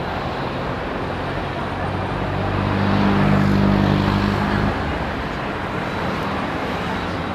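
Road traffic noise, with a motor vehicle's engine growing louder to a peak a little before halfway, then dropping away suddenly a little past halfway.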